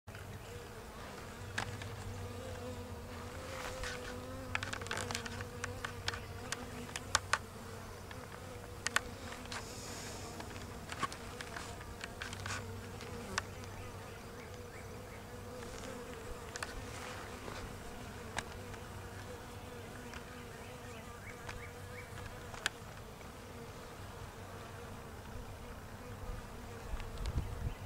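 Honey bees buzzing at a hive entrance: a steady, wavering hum, with scattered sharp clicks and ticks over it.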